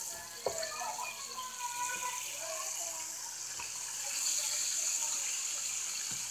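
Chicken thighs frying in a pan of hot oil: a steady sizzle that grows a little louder about four seconds in as the pieces are turned with a spatula. A couple of light knocks near the start and end.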